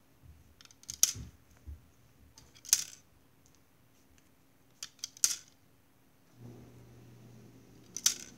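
Plastic Connect 4 discs clacking sharply into the game grid, about five times at uneven intervals. A low steady hum comes on a little after six seconds in.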